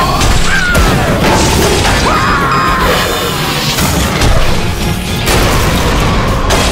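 Cartoon action soundtrack: busy music with crash and impact effects, and a few short gliding cartoon-voice squeals.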